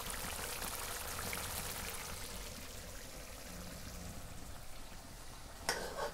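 Mutton keema bubbling and sizzling in oil in a steel pan, a fine crackle that eases off a little over time. The masala is reducing and the oil has separated out. Near the end there is one short, sharp sound.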